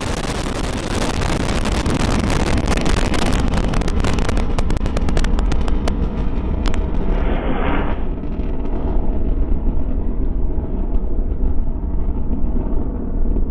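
Minotaur V rocket's solid-fuel first-stage motor burning just after liftoff: loud crackling noise for the first several seconds, its high crackle fading about six seconds in to a steady low rumble as the rocket climbs away.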